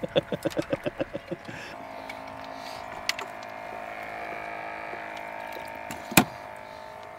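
A fast run of small clicks slows and fades over the first second and a half, then a small electric motor starts a steady hum of several fixed tones. There is one sharp click about six seconds in.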